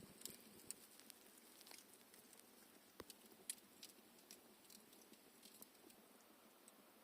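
Near silence broken by faint, irregular crackles and ticks, a few each second, with two slightly louder clicks around the middle.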